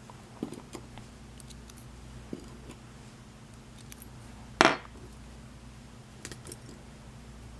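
Small metal lock pins clicking and tapping as they are handled and set into the chambers of a disassembled Schlage lock, with one louder clink about halfway through.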